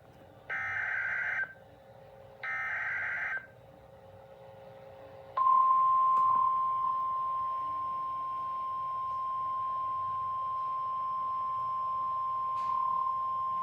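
Emergency Alert System SAME header: two short bursts of warbling digital data tones, each about a second long, that encode the alert. About five seconds in, the steady single-pitch 1050-hertz NOAA Weather Radio warning alarm tone begins, the signal that a warning message is about to be read.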